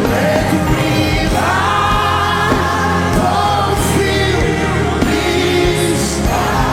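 Live gospel worship music: voices singing long, held, wavering lines over a band with a steady bass.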